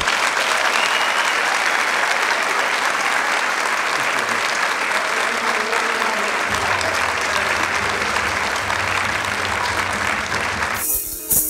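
Audience applauding steadily, cutting off abruptly near the end.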